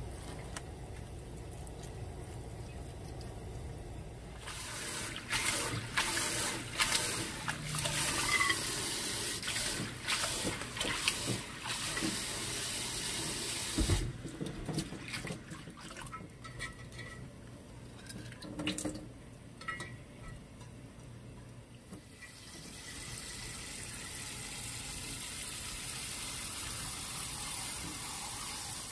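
Kitchen tap running into a sink, with clicks and knocks of things being handled under the water. The flow eases off about halfway through, then runs steadily again for the last several seconds.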